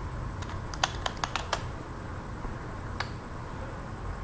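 Computer keyboard keystrokes: a quick run of about six clicks in the first second and a half, then a single click about three seconds in, over a low steady background hum.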